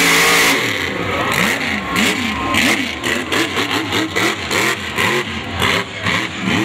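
Engine revving in quick repeated blips, its pitch rising and falling two or three times a second, after a loud steady roar that stops about half a second in.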